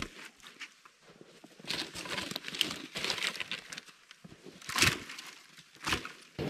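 Dead branches and twigs rustling, scraping and clattering as they are picked up by hand and piled onto a sled, with a few sharp cracks and knocks.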